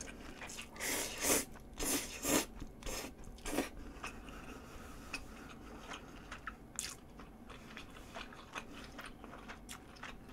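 Close-miked eating of spaghetti: several short loud slurps in the first four seconds as the noodles are sucked in, then quieter wet chewing clicks with the mouth closed.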